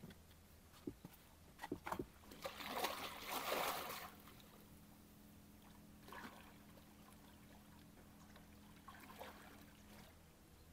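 A person plunging into a calm lake and swimming: a few sharp clicks, then a splashing rush of water from about two to four seconds in, followed by two fainter splashes from swimming strokes.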